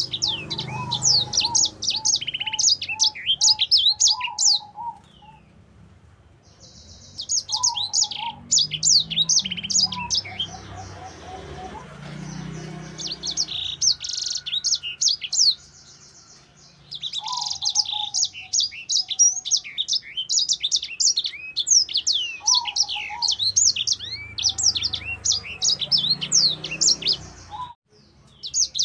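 Caged sanger, a small finch-like seedeater, in full song: a rapid, high twittering song rolled out in long unbroken phrases of several seconds each, with two short pauses between them.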